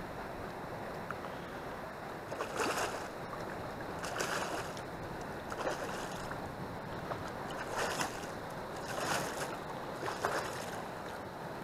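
Steady wash of river water and wind on the microphone, broken by about six short noisy bursts a second or two apart while a carp hooked in the tail is played on a bent rod near the bank.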